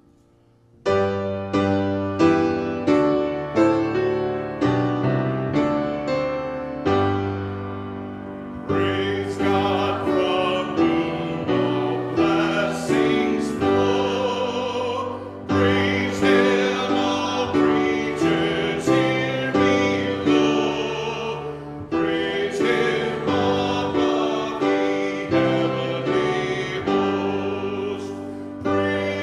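Music starts after a moment of near silence: keyboard chords struck in a steady repeated pattern about twice a second. About nine seconds in, a fuller arrangement comes in and continues.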